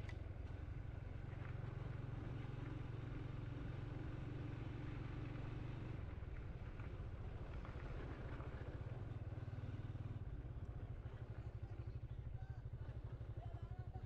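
Motorcycle engine running as the bike rides slowly along a road, heard from the rider's position. In the last few seconds the revs drop and the engine settles into an even pulsing beat as the bike slows.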